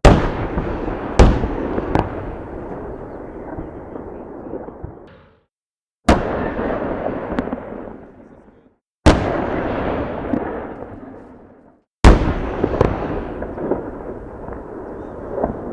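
Series of heavy explosive blasts, four big ones about three seconds apart with a few sharper cracks between them, each leaving a rumbling tail that dies away.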